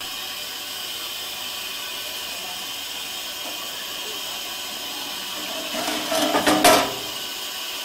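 Steady hiss of the Schneebergbahn rack steam locomotive 999.02 standing at the water crane, with a short burst of loud metallic clanks about six seconds in.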